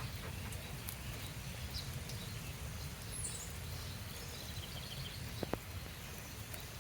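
Steady rain falling, with a low rumble underneath and a faint high chirp about three seconds in.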